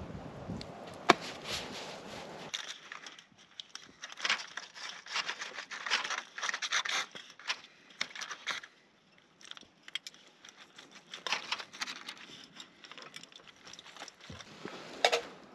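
Aluminium foil crinkling and a knife scraping through a roast chicken as it is carved in a foil tray, in short irregular rustles, with one sharp click about a second in.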